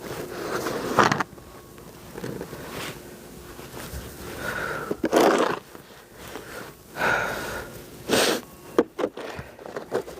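Snow being shovelled by hand: a shovel scraping and dumping snow in short strokes every second or two, with hard breathing in between.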